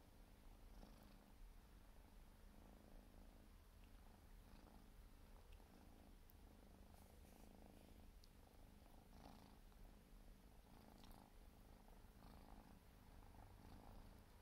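A Siberian kitten purring softly and steadily, with occasional faint licking sounds as it grooms its fur.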